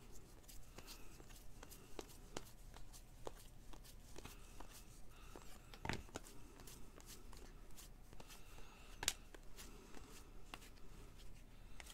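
Faint rustling and light clicks of sports trading cards being handled and flipped through by hand, with a sharper tap about six seconds in and another about nine seconds in.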